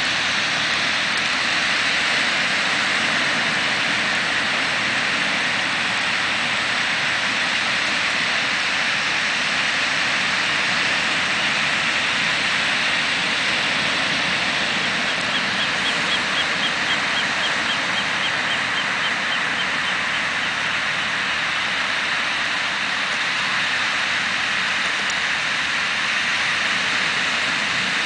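Ocean surf breaking on a sandy beach: a steady, even rushing noise.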